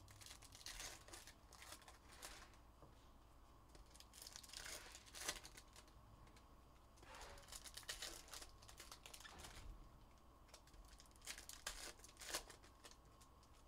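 Faint, irregular tearing and crinkling of trading-card pack wrappers being ripped open, with cards rustling as they are handled, in a run of short bursts.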